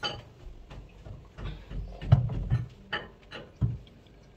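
A series of irregular knocks and clunks from hands-on work, the loudest about two seconds in.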